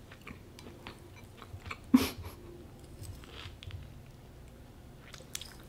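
A person chewing a mouthful of fried rice close to the microphone, with small scattered mouth clicks and one brief louder sound about two seconds in.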